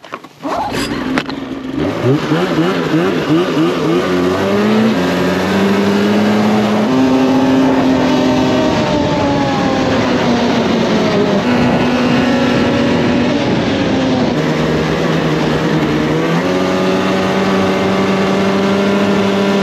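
2019 Polaris RMK 600 snowmobile's two-stroke twin engine revving up as the sled pulls away, then running at a steady high pitch under throttle while riding, its pitch stepping up and down a few times.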